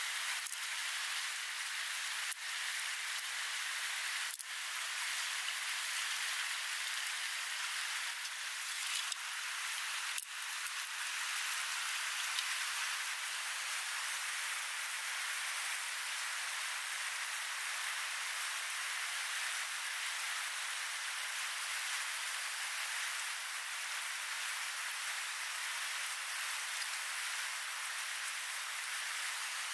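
Steady rush of shallow river rapids running over rocks: an even, unbroken hiss of water.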